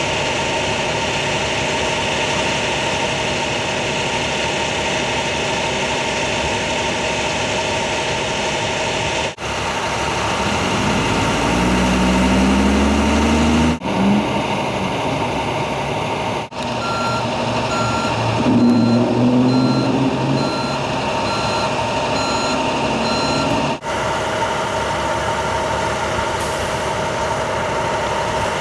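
Fire department vehicles' engines idling with a steady hum. Partway through, one engine revs up as a vehicle pulls away. Later a reversing alarm beeps steadily, a little more than once a second, for several seconds.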